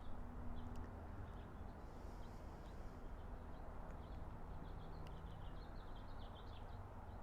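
Small birds chirping, a string of short high notes that grows busier in the second half, over a low steady background rumble.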